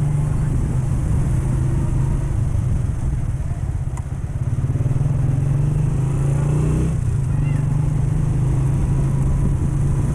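Motorcycle engine running steadily while riding, easing briefly about four seconds in and then picking up again.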